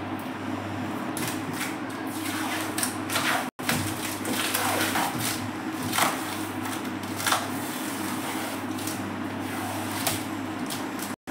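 Scattered knocks, clicks and scrapes as a drawer and panels of an aluminium modular cabinet are pushed, fitted and handled, over a steady low hum. The sound cuts out completely twice for a moment.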